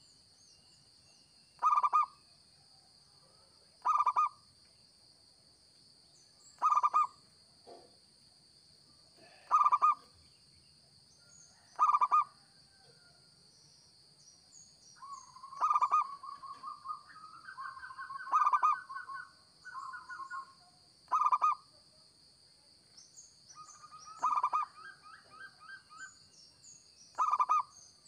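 Zebra dove (perkutut) calling, a short loud coo repeated about every two to three seconds. From about halfway through, runs of rapid stuttering coo notes join in between the single calls.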